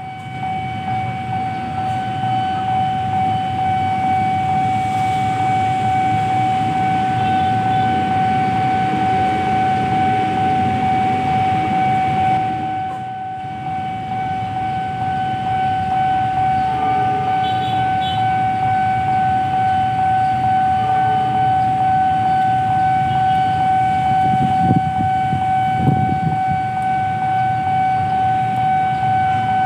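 Railway level-crossing warning alarm sounding one steady high tone while the barriers are down, over the low rumble of waiting traffic.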